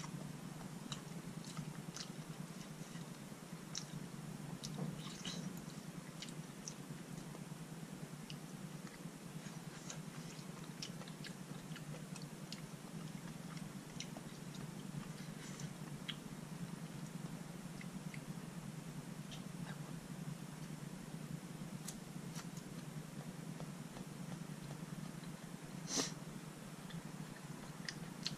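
Quiet eating sounds: soft chewing of malatang noodles with scattered light clicks from wooden chopsticks against the bowl and from the mouth, over a steady low hum. One sharper click stands out near the end.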